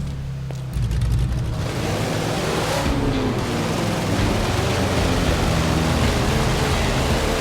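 Engine running with a steady low hum. Just under a second in it gets louder, and from about a second and a half a loud, even rushing noise joins it.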